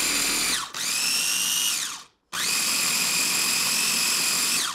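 Mini electric food processor pulsed in short runs: its motor whine spins up, holds steady and winds down, three times. The blade is chopping parsley, garlic, capers and cornichons to a fine, relish-like sauce.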